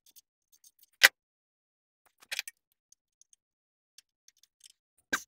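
A few sharp clicks and taps of a wrench and screwdriver against the rocker arms and lock nuts while setting valve clearance on a Kohler Courage V-twin: one loud click about a second in, a short cluster about halfway, and another click near the end.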